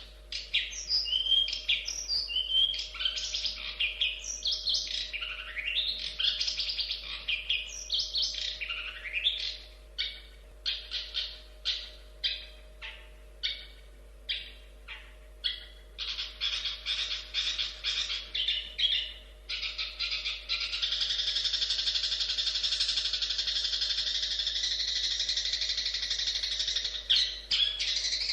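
Long-tailed shrike (cendet) singing: varied rising and falling whistled phrases, then a run of separate sharp notes about two a second that quicken into rapid series, and from about two-thirds of the way through a dense, unbroken chattering warble. A faint steady hum lies underneath.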